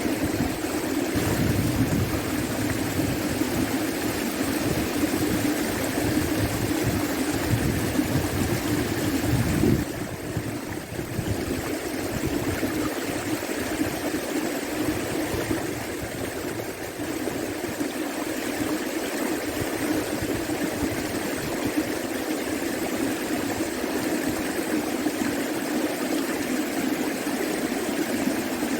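Flooded river water rushing steadily, with a steady low hum over it. A heavier low rumble in the first ten seconds drops away abruptly.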